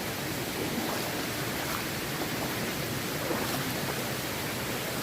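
Steady rush of a jungle waterfall, an even hiss of falling water with no breaks.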